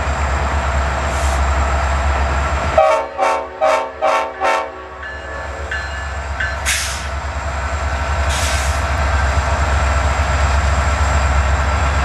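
Nathan Airchime RS5T five-chime locomotive horn sounded in five short blasts in quick succession, over the steady running of the locomotive's diesel engine. Two brief hisses follow a few seconds later.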